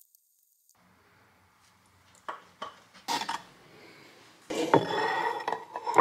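Dishes and cutlery clinking and knocking: a few separate knocks around the middle, then a longer clatter near the end.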